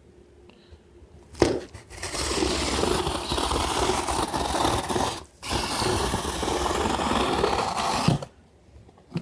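Cardboard shipping box being forced open without a knife: a long spell of scraping and tearing at the packing tape, broken once for a moment about five seconds in.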